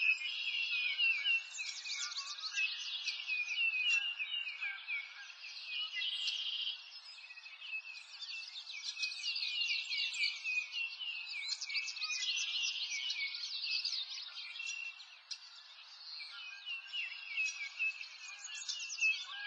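Several songbirds chirping and twittering, a steady run of quick, high, falling notes that overlap.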